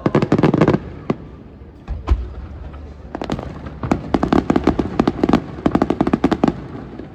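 Aerial fireworks bursting in a rapid barrage: dense clusters of sharp crackling reports, with a single deep boom about two seconds in.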